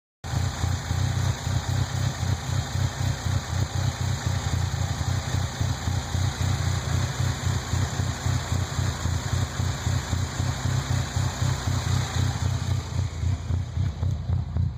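1998 Nissan Frontier's engine running at a rough idle, its low beat pulsing unevenly instead of running smooth.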